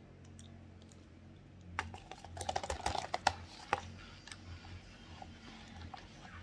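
Dry cornstarch being chewed: a quick, close run of crunchy crackling clicks lasting about two seconds, then fading to a few soft clicks.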